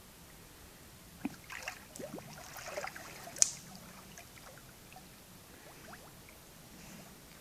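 A golden retriever splashing through shallow lake water as it lunges in and starts to swim: a burst of irregular splashes about a second and a half to three and a half seconds in, ending in one sharp slap of water, then only faint water sounds as it paddles.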